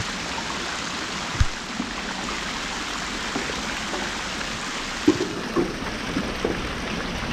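Steady rushing noise, like running water or air, with faint distant voices and a single low thump about a second and a half in.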